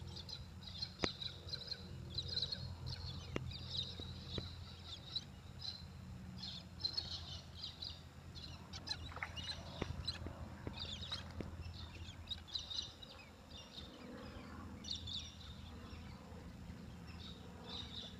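Birds chirping in quick, repeated short calls over a steady low rumble, with a few sharp clicks.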